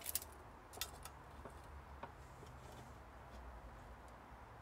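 A few light clicks and taps from handling a steel tape measure and a sheet of glass on a manual tile cutter. The sharpest click comes at the very start, another follows under a second in, and a fainter one about two seconds in, over a faint low hum.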